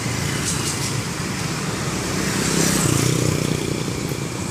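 Road traffic going by, a vehicle's engine rumble and tyre noise swelling about two and a half seconds in and easing off toward the end.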